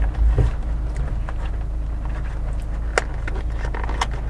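Cardboard pizza box being handled and opened by hand, its flaps giving scattered light taps and clicks, two sharper ones near the end, over a steady low rumble inside the car.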